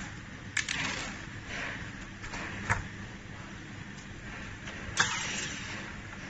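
Plastic housing and parts of a robot vacuum being handled during disassembly: a few sharp clicks and knocks, the loudest about five seconds in, with faint rustling between them over a steady low hum.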